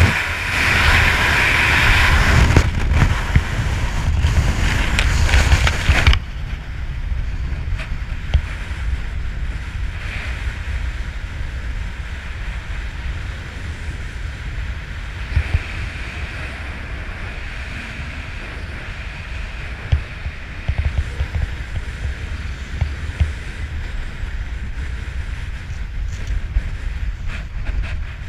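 Loud rush of freefall wind across a GoPro camera's microphone, cutting off abruptly about six seconds in as the parachute opens. After that, a softer, steady wind under the canopy with a few short knocks.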